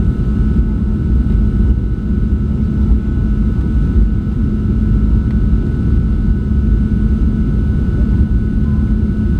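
Steady airliner cabin noise: the jet engines and airflow make a loud, even drone with a faint steady whine above it.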